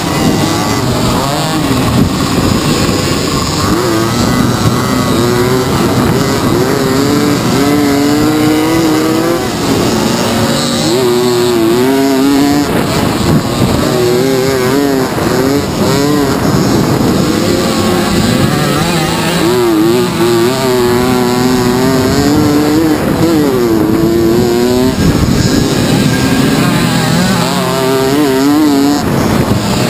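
Several small two-stroke moped engines racing at high revs, overlapping one another. Their pitches rise and fall again and again as they accelerate and back off, without a pause.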